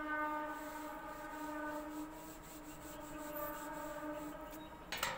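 Blackboard duster wiping chalk off a chalkboard in repeated scratchy strokes. Under it runs a steady pitched drone that fades out near the end, and a short loud rub or knock comes just before the end.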